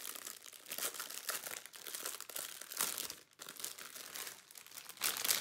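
A bundle of small self-seal plastic baggies of diamond-painting drills crinkling as they are handled and leafed through, in irregular crisp rustles with a brief pause about three seconds in.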